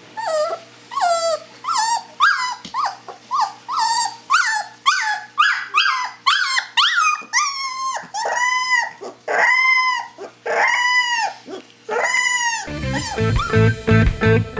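Siberian Husky puppy howling: a quick string of short, falling yelps that builds into about five longer howls, each rising and then falling in pitch. Near the end the howling stops and electric guitar music starts suddenly.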